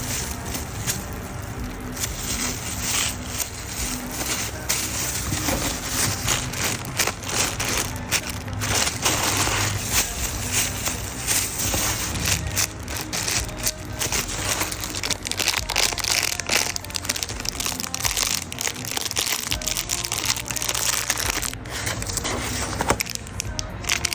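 A squishy package being handled, its wrapping crinkling and crackling in a dense, irregular stream over background music.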